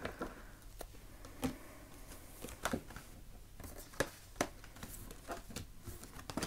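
Oracle cards being turned face up and laid down on a tabletop: a string of short, soft taps and flicks at irregular intervals, about eight in all.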